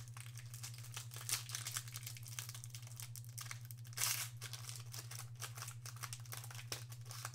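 Foil wrapper of a trading-card pack crinkling and crackling as hands work at it to tear it open, with a louder crackle about four seconds in.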